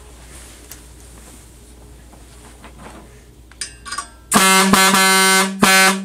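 Chrome single-trumpet truck air horn on about 90 psi of compressed air, blown in one loud steady note with a brief stutter near the end. It starts about four seconds in, after a few short faint squeaks as the air begins to flow.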